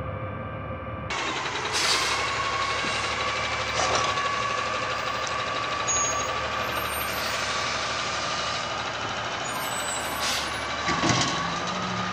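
Front-loader garbage truck with a compressed-natural-gas engine driving slowly, with a steady whine that rises in pitch near the end. Several short sharp air-brake hisses sound about 2, 4, 10 and 11 seconds in.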